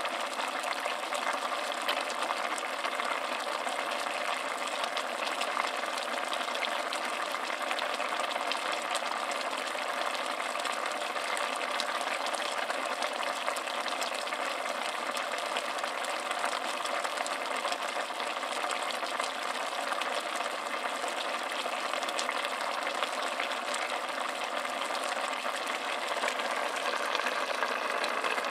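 Pieces of meat simmering in their juices in a stainless steel pot: a steady bubbling with many small pops.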